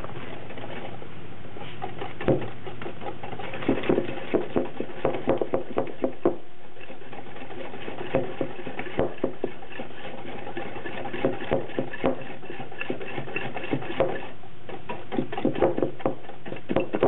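Wire whisk beating eggs and sugar for cannelé batter in a glass bowl, its wires clicking against the glass in quick irregular runs with short pauses.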